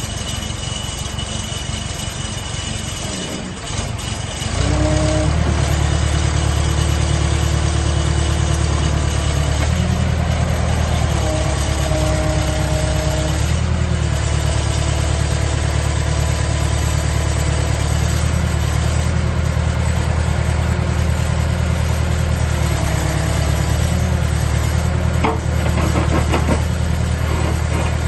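JCB 3CX backhoe loader's diesel engine running; about four and a half seconds in it steps up to a louder, faster steady speed. A whining tone comes and goes twice over the engine, and there are a few knocks near the end.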